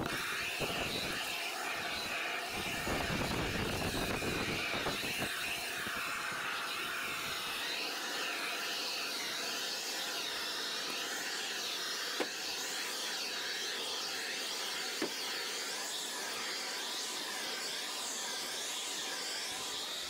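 Propane shrink-wrap heat gun running steadily, a continuous rushing roar as its flame is played over the boat's shrink wrap. Wind buffets the microphone in the first few seconds, and two short sharp clicks come about midway.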